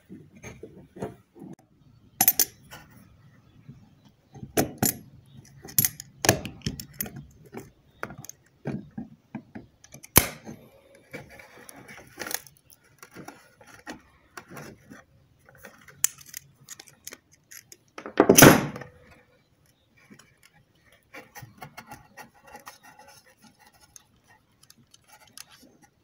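Adjustable wrench and locking pliers clinking, knocking and scraping against the drive coupler on an Oster blender's motor shaft as it is unscrewed, with the motor held by hand. Irregular metallic clicks and knocks throughout, the loudest a longer clattering rattle about 18 seconds in.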